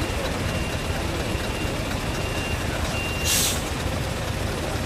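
Heavy truck engine running with a steady low rumble while its reversing beeper sounds faintly. A short sharp hiss of air brakes comes about three seconds in.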